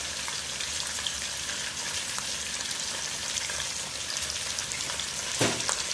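Chicken pieces sizzling in hot oil in a non-stick wok, a steady frying hiss, the chicken being browned until half-cooked. A brief knock about five and a half seconds in.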